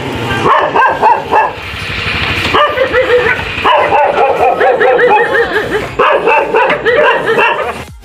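Dogs barking repeatedly in quick runs of short barks and yips, with a brief lull about two and a half seconds in.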